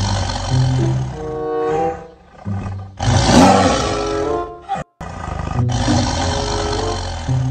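A tiger roaring over background music, loudest about three seconds in; the sound cuts out for an instant just before five seconds.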